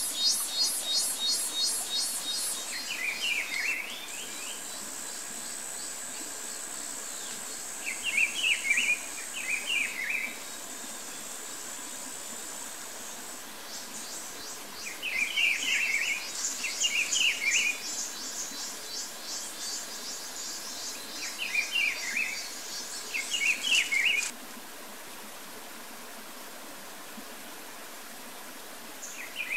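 Outdoor forest ambience: a bird repeats a short chirpy song phrase, usually twice in quick succession, every few seconds, over insects buzzing and trilling at high pitch. The insect trilling stops abruptly about 24 seconds in.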